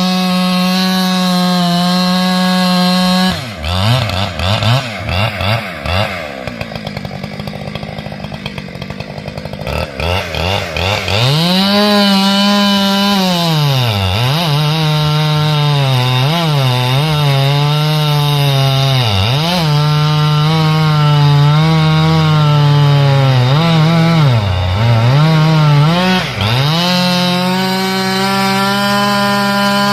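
Chainsaw engine running at high revs. Its pitch sags again and again as the chain bogs down cutting into firewood logs, then rises back to a steady high note when the cut frees. The revs drop from about three seconds in and stay low and uneven for several seconds, climb again, dip through a string of cuts, and settle back high near the end.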